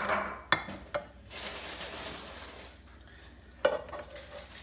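A wooden spatula scraping and scooping fried rice in a hot pan, with a few sharp taps against the pan and bowl and a hiss of sizzling rice. A louder knock comes near the end.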